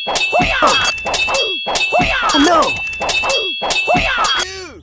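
Dubbed digging sound effect for a tiny metal hoe: repeated metallic clanks, about two a second, with a ringing tone held between them. Short voice-like cries that rise and fall in pitch come about once a second. Everything stops shortly before the end.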